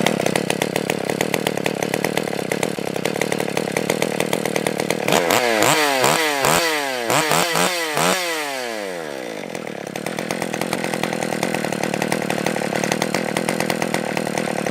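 Stihl 020 AV chainsaw's two-stroke engine idling, then revved in several quick throttle blips about five seconds in before settling back to a steady idle. It runs with its low- and high-speed carburettor screws opened to about a turn and a half out, a setting that seems to be working all right.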